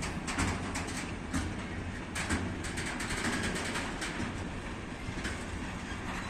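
Freight train of tank wagons rolling past: a steady low rumble with the wheels clicking in repeated clusters over the rails.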